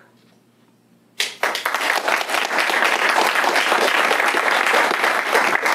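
Audience applauding. It starts suddenly about a second in and keeps up as a steady dense clatter of many hands.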